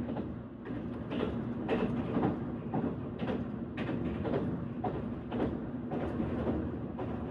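Train running on rails: a steady rumble with wheel clicks over the rail joints about twice a second.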